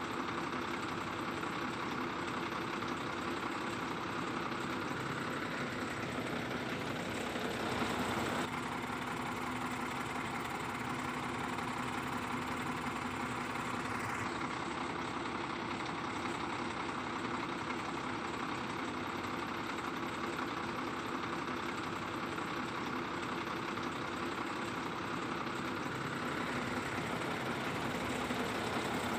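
Heavy diesel truck engine idling steadily, its tone shifting slightly about eight and fourteen seconds in.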